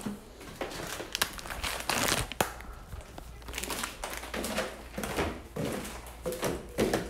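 Handling noise from a phone being carried and jostled down a wooden staircase: irregular rubbing and crinkling on the microphone, broken by sharp knocks.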